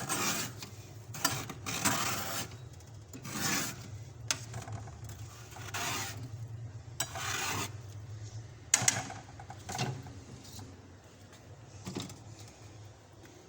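Soft, fluffy frost being scraped off the inside of a fridge, in a run of uneven scraping strokes. There are two sharp clicks about nine seconds in, and the strokes thin out near the end.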